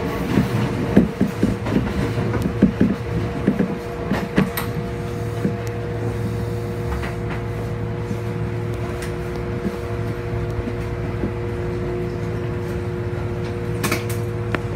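Passenger train heard from inside a carriage: the wheels clatter over rail joints and points for the first few seconds, then the train runs on with a steady hum and a steady whine. One sharp click near the end.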